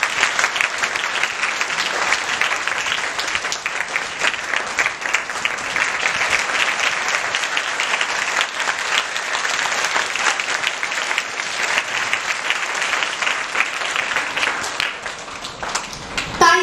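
Applause from an audience of many people clapping steadily. It dies away near the end.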